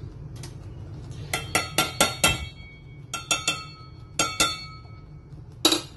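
A spoon clinking against a metal cooking pot, about ten short ringing taps: a quick run of five, then three, then two, and one more near the end.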